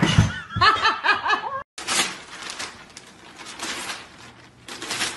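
A person laughing in a quick string of short rising-and-falling bursts for about a second and a half. After a brief break, newspaper pages rustle and crinkle as a golden retriever grabs at them with its mouth.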